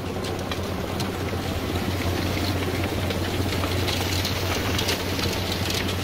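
Case MX110 tractor's diesel engine running steadily under load, pulling a seed drill, with the drill's spring tines and coulters rattling and clicking as they cut through the soil.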